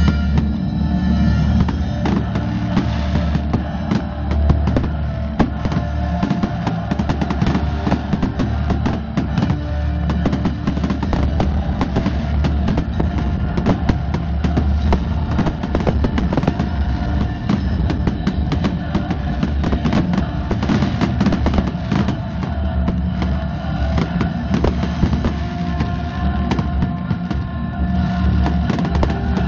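Aerial fireworks shells bursting in rapid, continuous succession, many sharp bangs close together, over loud music.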